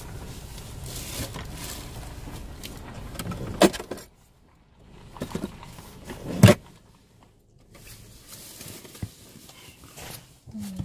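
Low rumble inside a car cabin, then rubbing and knocks from a hand-held camera being handled right at the microphone, with two sharp knocks, the second, about six and a half seconds in, the loudest.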